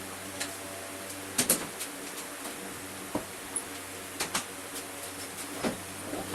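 Scattered light clicks and knocks, the loudest a quick pair about a second and a half in, over a steady low hum.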